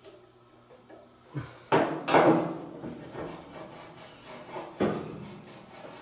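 Hands and tools knocking and rubbing on the sheet-metal rear bulkhead of a dryer while cleaning gunk off a drum support roller shaft: a few knocks and a scraping rub, loudest about two seconds in, and another knock near the end.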